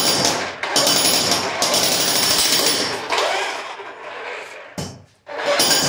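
Electric jackhammer with a chisel bit, hammering rapidly into a concrete floor. It eases off about three seconds in, stops briefly just after a knock near five seconds, then starts hammering again just before the end.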